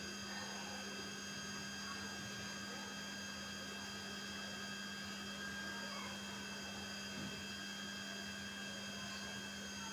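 Steady electrical hum with a strong low tone and several faint high whines over room noise.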